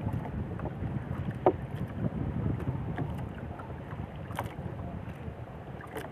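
Wind buffeting the microphone in a small boat at sea, a steady low rumble. Three sharp knocks break through it: a loud one about a second and a half in, and lighter ones later and near the end.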